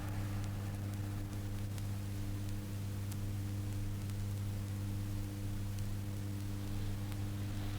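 Steady low electrical hum with faint hiss and a few scattered clicks: the background noise of an old recording between effects.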